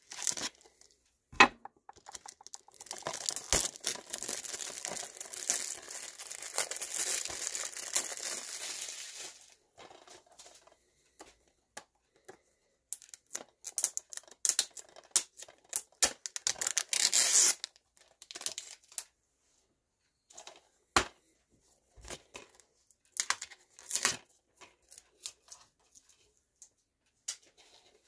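Plastic shrink-wrap being torn and peeled off a DVD case: a long stretch of tearing and crinkling in the first several seconds, then scattered crinkles and sharp clicks, with a louder burst of crinkling midway.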